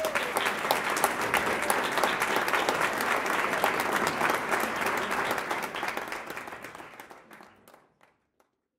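Audience applauding: dense, sustained clapping that tapers off over the last couple of seconds and stops.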